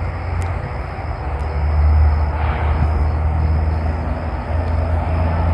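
Steady low rumble of a vehicle, with an even wash of noise over it.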